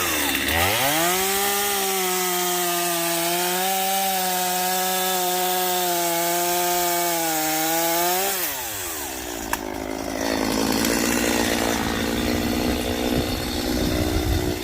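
Gas chainsaw revved up to full throttle and cutting into a log, the engine note holding high with small dips under load for about seven seconds. It then drops back quickly and keeps running at lower speed.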